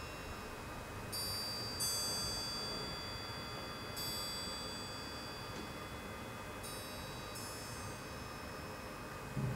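Orchestral percussion chime, a high bell-like metal instrument, struck five times, in pairs and singly, each stroke ringing on and overlapping the next, over faint sustained orchestral sound.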